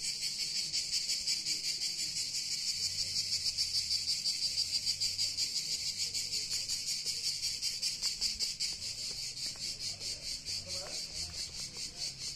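A steady, high-pitched chorus of insects chirring in a fast, even pulse.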